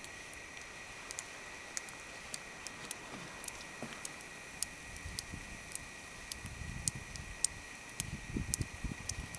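Quiet outdoor ambience: a faint steady high hum with scattered light ticks, and low rumbling bumps building over the last few seconds.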